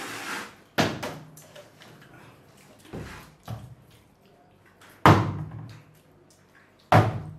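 Sharp hollow smacks of an empty plastic water bottle being swung against people, about five in all. The loudest land about a second in, about five seconds in and near the end, with two lighter hits around three seconds in.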